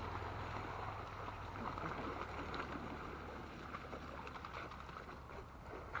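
Water sloshing and splashing as several dogs swim and wade through shallow lake water.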